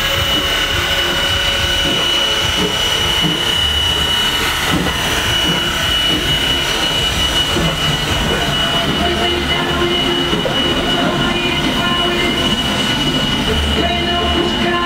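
Narrow-gauge steam locomotive Rio Grande Southern No. 41, a Baldwin 2-8-0, rolling slowly past with its tender and a coach: a steady rumble of wheels on rail and running gear. A steady high tone sounds over it.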